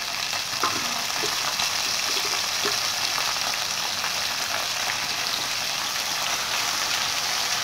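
Hot oil sizzling steadily in a pan of frying onions, ginger-garlic paste and just-added wet fenugreek leaves.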